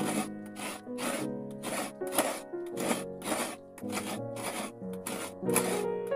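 Coconut meat being scraped out of a halved coconut on a serrated metal coconut grater, in regular rasping strokes about two a second. Background music plays underneath.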